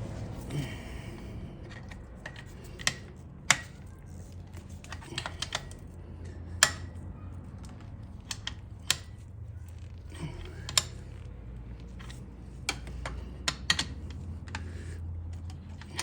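Scattered sharp metallic clicks and clinks of hand tools, a socket and wrench on engine bolts, a dozen or more irregular strikes with a few quick clusters, over a steady low hum.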